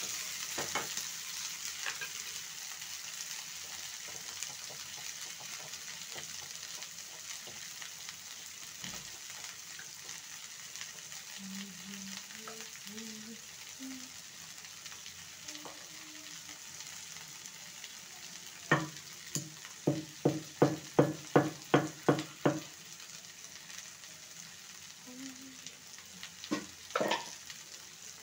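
Cauliflower, potato and green beans sizzling in mustard oil in a frying pan, a steady hiss that slowly fades. About two-thirds of the way through comes a run of about ten short, evenly spaced knocks, roughly three a second, with two more near the end.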